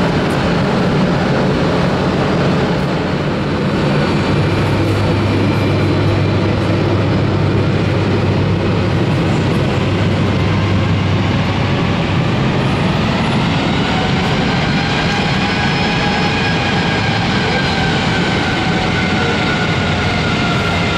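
Jet aircraft engines running loud and steady, with a whine that climbs in the second half and then eases slightly.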